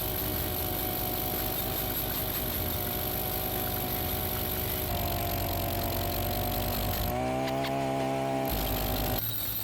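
Petrol-powered drill running steadily while drilling into sandstone, a constant engine drone with a high whine above it. About seven seconds in the note changes abruptly to a more even hum for a second or so, then goes back.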